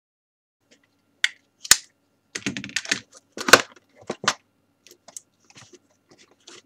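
Packaging of a camcorder being opened by hand: a run of sharp clicks and knocks, a quick flurry in the middle and two louder knocks, thinning to faint ticks near the end.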